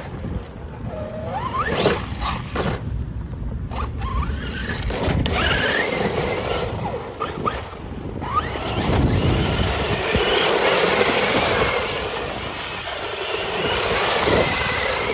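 Losi DBXL-E 2.0 electric RC buggy being driven hard on dirt: its brushless motor whines, rising in pitch with each burst of throttle, over the noise of the tyres churning loose ground. About halfway through the sound thickens into a sustained stretch of motor whine and tyre noise.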